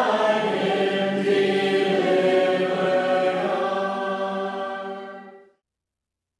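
A group of voices singing a metrical psalm unaccompanied. The last held chord of the psalm tune fades out about five seconds in and gives way to silence.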